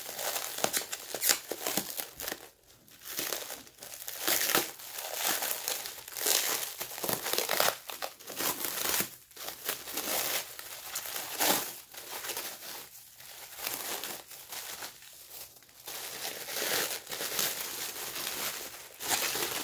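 Packing wrap crinkling and rustling in irregular bursts as items are unwrapped by hand.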